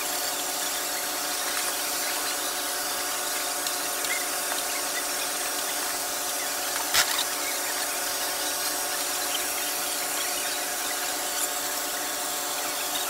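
Okonomiyaki batter sizzling on a large hot teppan griddle, a steady hiss with a steady hum under it. There is a single sharp click about seven seconds in.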